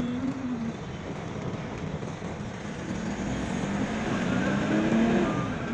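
Car's engine and road noise while driving through town, the engine note rising from about halfway through and easing off near the end.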